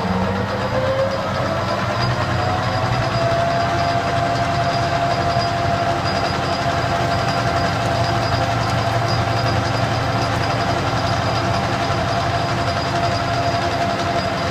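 Metal lathe running under power while a carbide-insert facing tool takes a 30-thousandths facing cut: a steady motor and gear whine over a rumble, one tone rising just at the start and then holding level.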